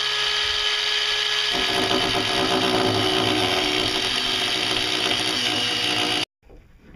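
Electric angle grinder running with its disc grinding on metal. About a second and a half in, its note drops and turns rougher as the disc bears down on the work. It stops abruptly near the end.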